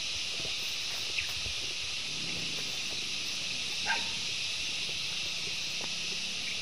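Steady high-pitched outdoor hiss, with two short animal calls: a faint one about a second in and a louder one just before four seconds in.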